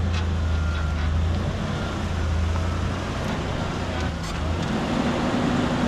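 Off-road truck engine running at low speed, a steady low hum, as the truck crawls back and forth over freshly shovelled dirt to pack the fill.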